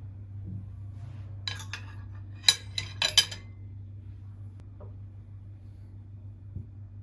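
A quick run of about six sharp clinks of small hard objects knocking together or being set down, over about two seconds, with a low steady hum underneath.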